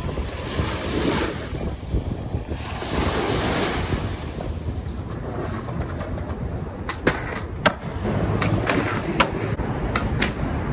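Small waves washing up on a sandy beach, swelling and falling back, with some wind on the microphone. Past the middle this gives way to a skateboard on a concrete sidewalk: wheels rolling, with a series of sharp clacks of the board popping and slapping down.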